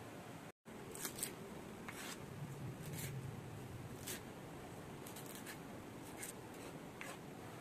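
Kitchen knife chopping fresh parsley on a wooden cutting board: a dozen or so short cuts at irregular intervals over a faint steady hiss.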